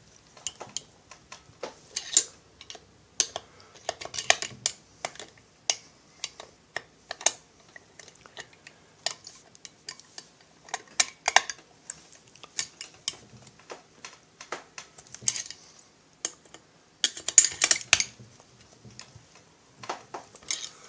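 Irregular small clicks, taps and short rattles of a hand tool and metal parts being handled while a chainsaw cylinder is fitted and fastened to its crankcase, with a denser clatter about 17 seconds in.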